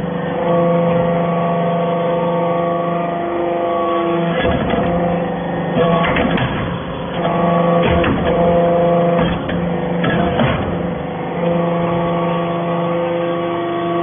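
Hydraulic metal-chips briquetting press running through its pressing cycle: a steady hum from the hydraulic power unit that changes and restarts several times as the ram works, with several metallic clunks.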